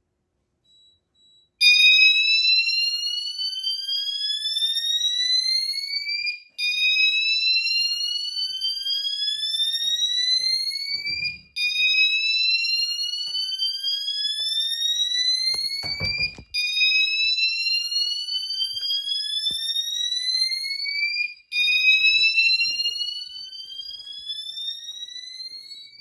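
Wall-mounted fire alarm notification appliance sounding a repeating rising sweep tone, each sweep lasting about five seconds, starting about a second and a half in. It is the house fire alarm system's supervisory signal, set off by the garage system's tie-in.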